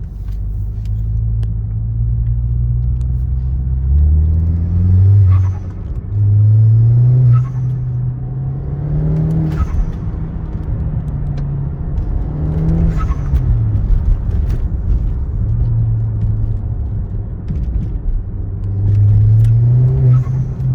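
Audi 2.0 TFSI turbocharged engine with a K04 turbo pulling up through the revs and easing off several times, with brief hissing vents from its Forge blow-off valve when the throttle closes.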